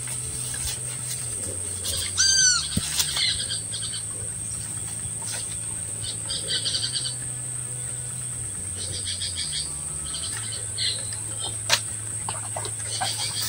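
A bird calls with a quick run of about five falling whistled notes about two seconds in, and insects give short high trills several times, over a low steady hum.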